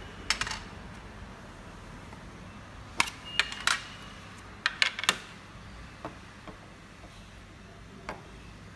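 Sharp, irregular clicks and taps from handling a metal fidget spinner, in a few small clusters, loudest in the middle, over a low steady hum.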